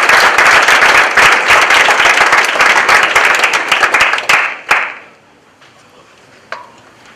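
Audience applauding; the clapping dies away about five seconds in.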